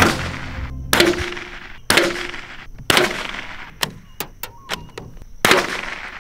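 Ruger Precision rifle firing five shots: four at about one-second intervals, then a pause with lighter clicks before the fifth shot.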